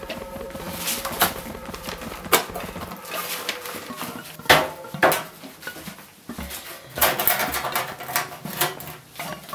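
Aviation tin snips cutting a thin steel engraving plate: irregular sharp metallic snips and crunches, two loud ones near the middle and a quick run of them near the end.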